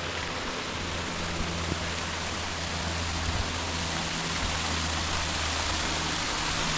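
Steady rush of falling water from a small waterfall cascading over rock.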